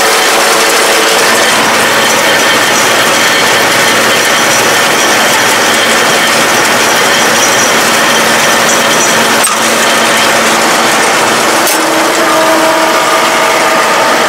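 Round baler running behind a tractor while picking up rice straw: a steady, loud mechanical noise from the pickup, chains and rollers. A few steady tones in it shift about two-thirds of the way through.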